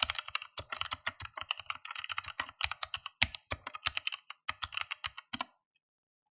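Typing on a mechanical keyboard with Outemu Red linear switches: a fast, irregular run of keystrokes that stops about five and a half seconds in.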